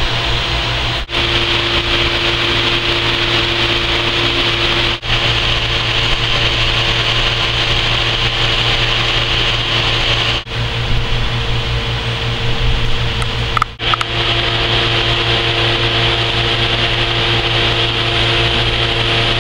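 Hydraulic pump unit running steadily, driving the cylinder that pulls on a subsea swing bolt clamp in a pull test. It is a constant hum with a steady whine and hiss, broken by a few short gaps.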